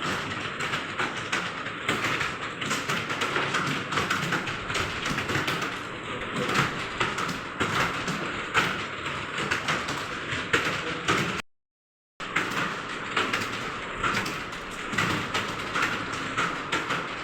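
Fast typing on a computer keyboard: a dense, continuous clatter of key clicks. The sound cuts out completely for under a second about eleven seconds in.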